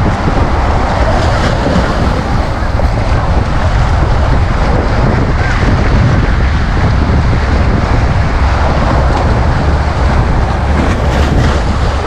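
Small sea waves breaking and washing up over sloping concrete sea-wall steps, a steady surging wash of surf, with wind rumbling on the microphone underneath.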